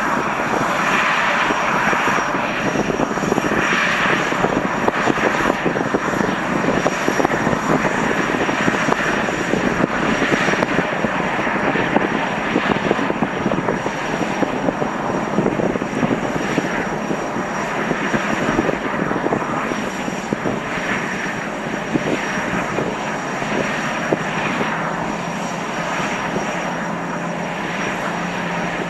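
Boeing Jetfoil's gas turbines running at low power as the hydrofoil ferry manoeuvres hullborne into its berth: a steady rushing noise with a thin high whine over it.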